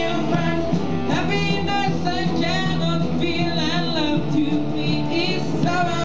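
Live rock band playing: a man singing over electric guitars and drums.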